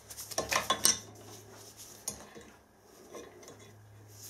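Steel adjustable spanner clinking against a broken stud and a cast-iron vice jaw as the loosened stud is wound out, with a quick cluster of clinks about half a second in and one more sharp clink about two seconds in. The stud has just broken free after the metal around it was heated.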